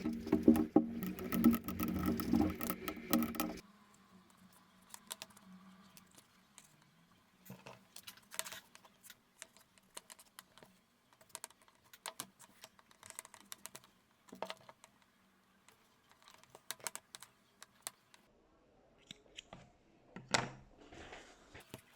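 Leather being hand-stitched with two needles: faint, scattered clicks and rustles as the needles go through the pre-punched holes and the thread is drawn tight. A louder, denser clatter fills the first few seconds and cuts off suddenly.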